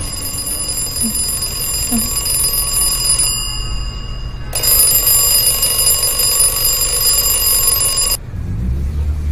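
A phone alarm ringing as a steady, high electronic tone. It cuts off abruptly about eight seconds in, as the alarm is switched off, and a low rumble follows near the end.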